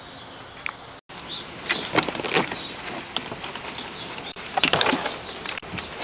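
Plastic door trim panel of a 2000 Mazda MPV being handled and worked loose from the door: a busy run of sharp plastic clicks, knocks and scraping, starting after a brief dropout about a second in and loudest around two and five seconds in.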